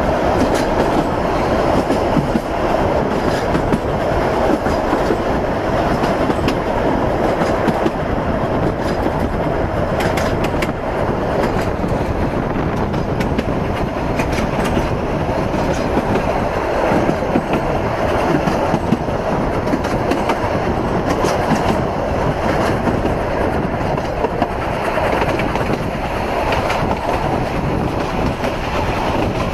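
Isle of Man Railway narrow-gauge steam train running, heard from an open carriage window: a steady loud rumble of the moving train with the carriage wheels clattering over the rail joints.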